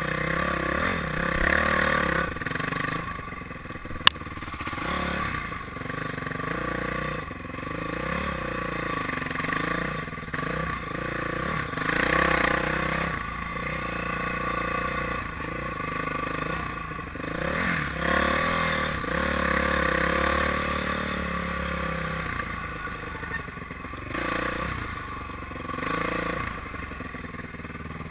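Honda dirt bike engine revving up and down again and again as the rider works the throttle over rough sand and trail. A single sharp click comes about four seconds in.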